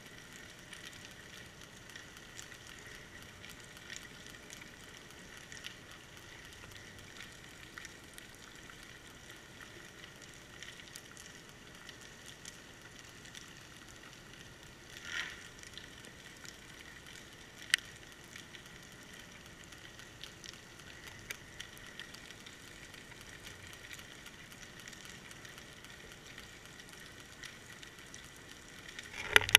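Faint, steady underwater crackle and hiss picked up through a GoPro's sealed waterproof housing, dotted with small clicks. Two sharper clicks come about halfway through, and a few louder knocks come at the very end.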